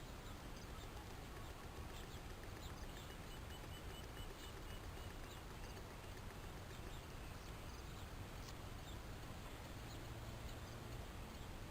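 Guinea pigs heard faintly: a few short, high squeaks and a brief run of quick, evenly spaced chirps a few seconds in, over a steady background hiss.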